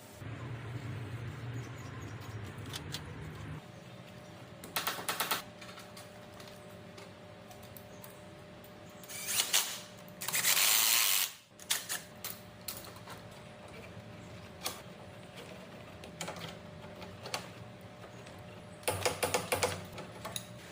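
Mechanical work noises: a low hum for the first few seconds, then short bursts of rattling clicks, and one loud, noisy burst lasting about a second just past the middle.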